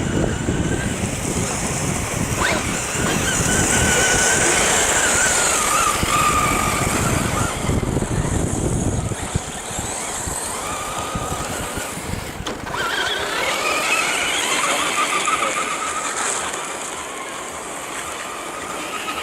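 1:8 electric RC short-course truck's brushless motor whining, its pitch gliding up and down as the throttle is worked, over steady rushing noise that is heavier in the first half.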